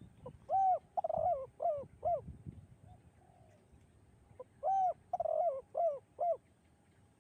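Spotted dove (tekukur) cooing the 'kuk 2' song: two phrases, each of about five arched coo notes, with a pause between them.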